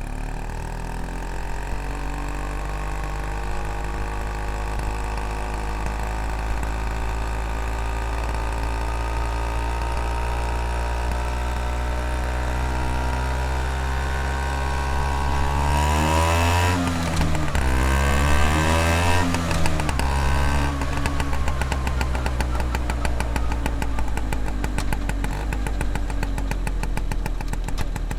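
Vespa scooter engine running under way, its pitch slowly climbing at first. About halfway through it gets louder and the pitch swings up and down a couple of times as the throttle is worked, then it settles back into a steady run.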